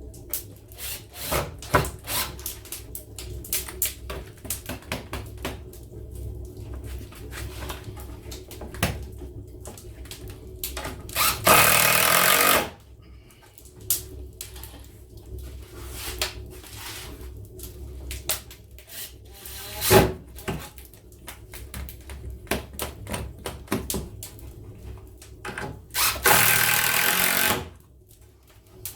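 Workshop handling, with many small knocks and clicks as parts of a wooden bandsaw circle-cutting jig are fitted. Two short bursts of a power tool come about 11 seconds in and near the end, each lasting about a second and a half.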